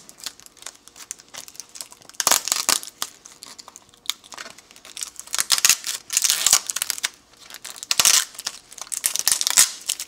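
Clear sticky tape being peeled and crumpled off a vacuum-formed polystyrene case as the stripboard drilling jig is taken off: irregular crackling and tearing in short bursts, three main spells.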